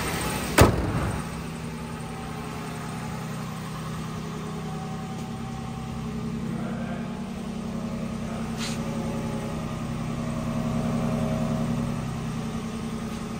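Toyota 4Runner's VVT-i V6 idling steadily while warming up after a cold start, a low even hum that grows a little louder near the end at the exhaust. A sharp clack sounds about half a second in, and a faint tick comes later.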